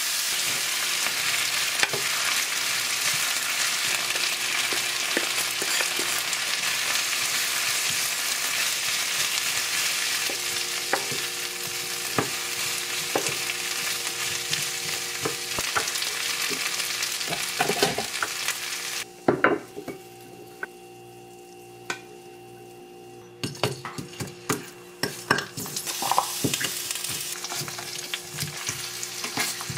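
Julienned potatoes sizzling steadily in oil in a ceramic-coated frying pan, with a wooden spatula tapping and scraping the pan as they are stirred. About nineteen seconds in, the sizzle drops away for a few seconds, then returns as round patties fry and are turned with tongs, which click against the pan.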